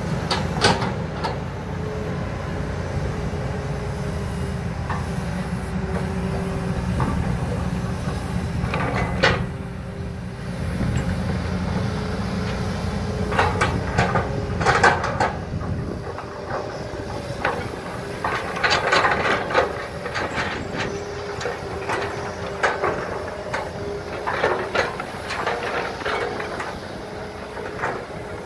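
Two hydraulic excavators, a Kobelco and a Hitachi, digging a muddy trench: diesel engines running with a steady hum, and repeated knocks and clanks as the buckets bite, swing and dump wet soil. The deep engine rumble eases a little past halfway, and the clanks come thicker after that.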